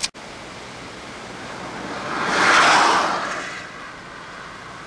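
Steady outdoor rushing noise with one whoosh that builds and fades in the middle, and a brief dropout in the sound right at the start.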